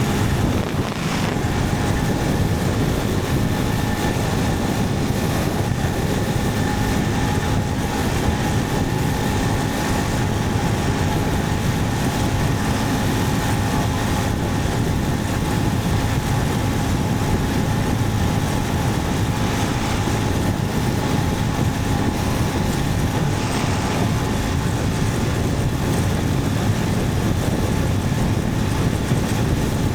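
Motorcycle riding at a steady speed: a steady engine note under loud, even wind rush on the microphone.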